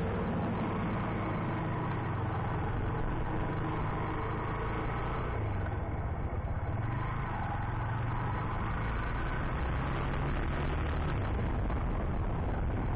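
Motorcycle engine running steadily under way, its note shifting a few times, with wind and road noise, picked up by an SJCAM SJ4000 action camera's microphone.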